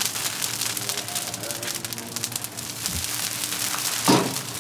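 Fish sizzling and crackling on a charcoal grill over hot coals as the chef sprays salted water onto them, with a louder hiss about four seconds in as the spray hits.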